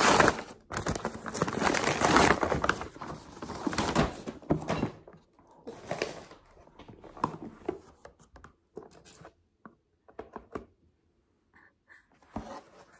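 Gift wrapping paper being torn and crumpled off a cardboard box, loud and crackly for about the first five seconds, then lighter rustling and soft knocks as the cardboard box is handled and its lid opened.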